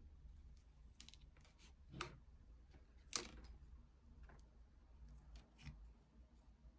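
Faint clicks and light scraping of rattan cane being bent and tucked into the rim of a small woven rattan plate, a scattering of short ticks with the sharpest about three seconds in.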